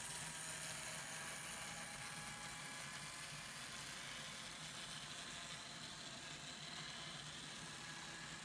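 N scale model freight train rolling past behind an Intermountain diesel locomotive, with no sound decoder: a faint steady whir of the DC motor and wheels running on the track.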